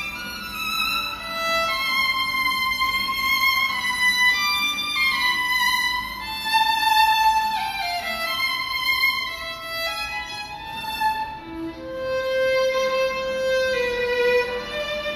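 Solo violin bowed in a slow melody of long held notes, sliding between some of them, moving down to lower sustained notes in the second half.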